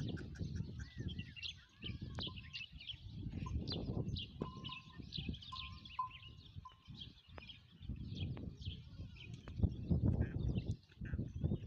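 Many small birds chirping and twittering together, with a short run of repeated whistled notes about halfway through. A low rumbling noise swells and fades underneath.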